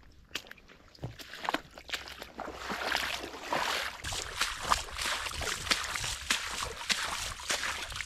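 Footsteps wading through shallow swamp water in trail-running shoes, each step sloshing and splashing, the steps quick and irregular and growing louder after the first second or so.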